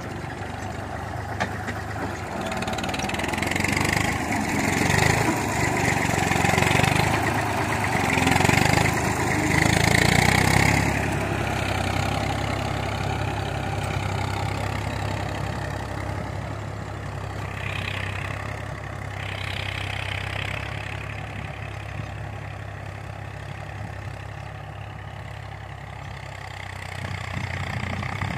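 Farm tractor's diesel engine running steadily under load while pulling a tined seed drill through dry soil. It is louder about 4 to 11 seconds in, then quieter as the tractor pulls away across the field.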